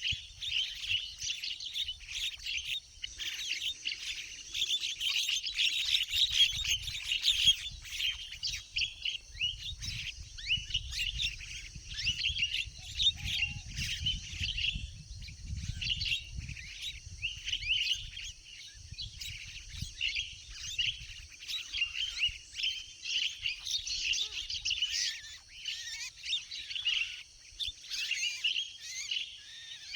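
Javan mynas (jalak kebo) calling in a dense, continuous chatter of short, overlapping chirps. A low rumble comes in through the middle stretch.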